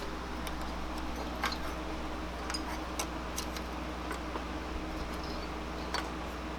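Scattered light clicks and taps, about a dozen, over a steady low hum.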